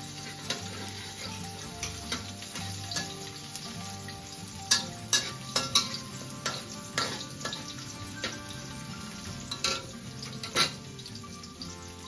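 Chopped garlic sizzling as it fries in a steel wok, with a metal spatula scraping and clinking against the wok, the sharpest clinks about halfway through and near the end.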